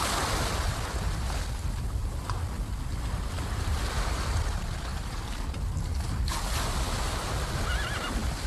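Sea surf washing over the shallows, with a low wind rumble on the microphone. Two louder washes of water come at the start and about six seconds in, and a short, faint wavering call comes near the end.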